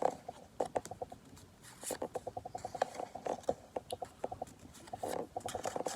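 Pokémon trading cards being handled and flipped through by hand: runs of quick light clicks and a few short rustles.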